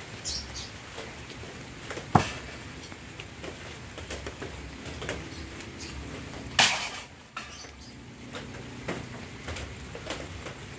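Throwing knives striking a wooden log-slice target: a sharp hit about two seconds in and a louder one about four and a half seconds later with a short ringing tail, with a few fainter clicks after. A low steady patter of light rain runs underneath.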